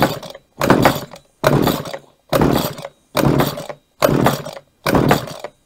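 Recoil pull-starter of a Gardenline BG-35011 hedge trimmer's 22cc two-stroke engine (1E32F) pulled about seven times in quick succession, roughly one pull every three-quarters of a second, on choke. The engine cranks but never fires: it won't start, a fault the owner thinks could lie in the carburetor or the spark.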